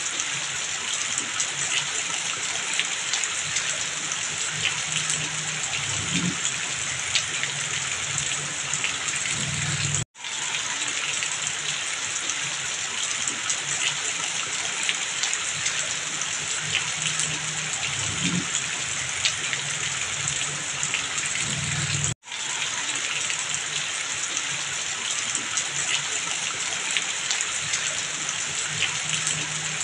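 Heavy rain falling, with water streaming off a roof edge: a dense, steady hiss full of small drop taps. The sound cuts out briefly twice, about twelve seconds apart.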